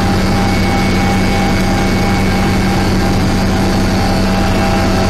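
Helicopter engine and rotor noise heard from inside the cabin: a loud, steady drone with a constant low hum and a few higher fixed tones.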